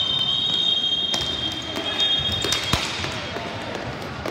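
Referee's whistle blown in one long steady blast that stops about three seconds in, over sharp clacks of sticks and the plastic ball on the sport-court floor.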